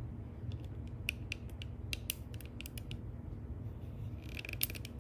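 A kitchen knife slicing cherry tomatoes into rounds on a wooden cutting board, the blade clicking against the board in a string of sharp ticks, then a quick cluster of them near the end, over a steady low hum.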